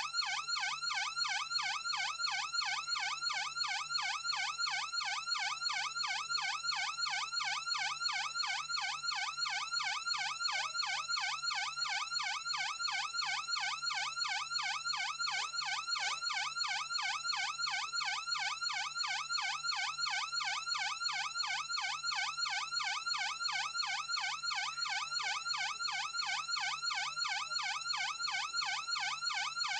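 Electronic police siren in a fast yelp, its pitch sweeping up and down several times a second, steady and unbroken.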